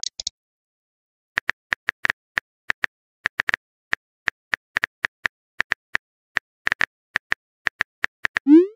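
Phone keyboard tap sound effects, a rapid, uneven run of short clicks, one per letter as a text message is typed. Near the end a rising pop and a chime-like tone sound, the messaging app's message alert.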